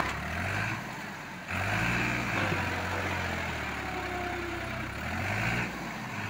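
Farm tractor's diesel engine running hard while the tractor works through deep mud. Its steady hum gets louder about a second and a half in and eases off again near the end.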